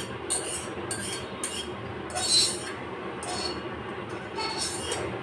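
Metal spatula scraping soupy noodles out of a metal cooking pan onto a plate, in several short scraping strokes, the loudest about two seconds in, over a steady low hum.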